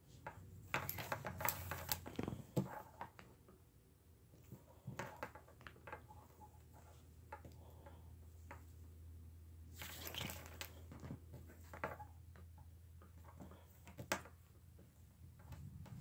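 Paracord being woven into a sling by hand: faint rustling, sliding and light scraping as strands are wrapped and pulled tight, in short bursts clustered near the start and again about two-thirds through, with one sharp click near the end. A faint low hum runs underneath.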